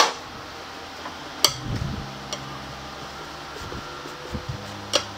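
Sharp metal clacks from work at a tyre-changing machine: a loud one at the start, another about a second and a half in, and one near the end, over a steady low machine hum.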